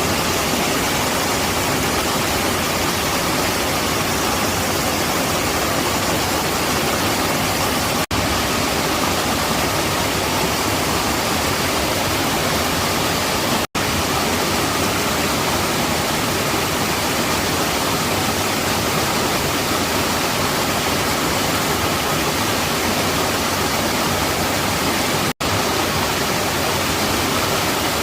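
Mountain stream water rushing steadily, a loud even roar, broken by very brief silent gaps a few times.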